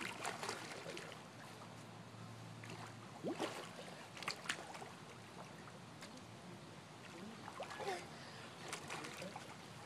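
Pool water lapping and splashing softly as a swimmer strokes through it carrying a child on her back, with a few small sharp splashes scattered through.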